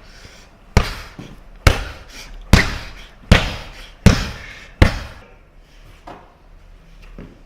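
A series of sharp knocks or thuds: six loud strikes about three-quarters of a second apart, then two fainter ones near the end.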